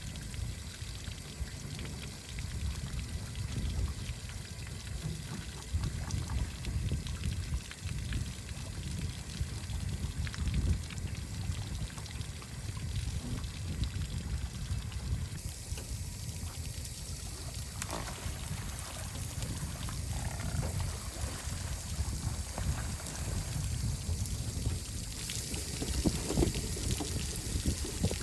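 Water running from a tap and splashing onto a stainless fish-cleaning table, heard as a steady hiss that gets brighter about halfway through, over a low fluctuating rumble.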